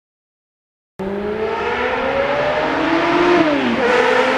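Motorcycle engine accelerating hard, starting abruptly about a second in: the revs climb, fall sharply at a gear change about three and a half seconds in, then climb again.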